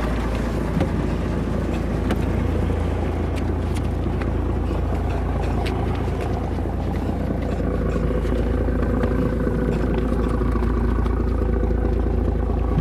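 Fishing boat's engine running steadily with a low drone, under a hiss of wind and water.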